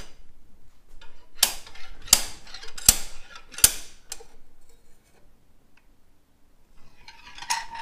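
Slide hammer striking its stop four times, sharp metallic clanks with brief ringing, as its locking pliers pull on the decibel killer (baffle) wedged tight inside an Akrapovic exhaust muffler.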